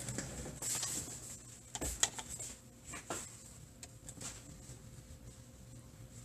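Scattered light clicks and taps, a few every second or two, over a steady low hum in a small room.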